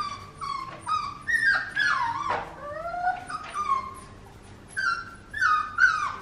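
A dog whining and yelping over and over in a quick run of short, high-pitched cries, many of them falling in pitch.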